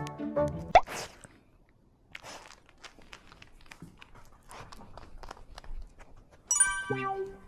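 Background music stops about a second in. After that a Pomeranian's paws tap lightly on a wooden floor as it walks. The music comes back near the end.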